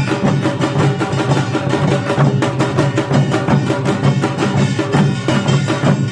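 Korean pungmul percussion ensemble playing a fast, dense rhythm of rapid strikes over sustained ringing tones.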